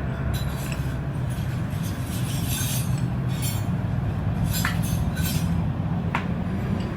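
Light metallic clinks and taps of tools and small metal engine parts being handled, with a couple of sharper ticks, over a steady low hum.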